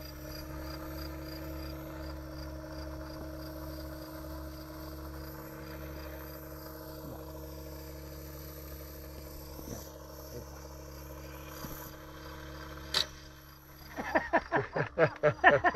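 RC helicopter in flight at a distance, its motor and rotor giving a steady hum with a faint high whine. A single sharp click comes about two seconds before the end, then a run of loud, rapid pulses.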